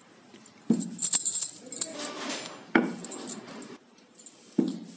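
Wooden rolling pin rolling out a small ball of stiff dough on a marble board: a rolling, scraping rumble with a few sharp knocks as the pin is set down and worked back and forth.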